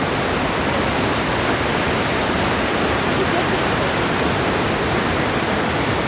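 Steady rush of water from Hirayu Falls and the stream below it tumbling over rocks, an even, unbroken roar.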